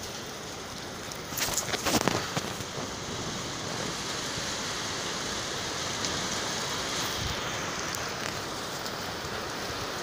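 Heavy rain pouring down steadily in a dense hiss, with a few sharp knocks about one and a half to two seconds in.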